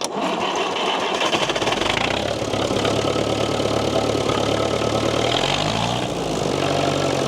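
Old International tractor's diesel engine starting and running. About five and a half seconds in, the engine speed rises and then holds steady at the faster pace.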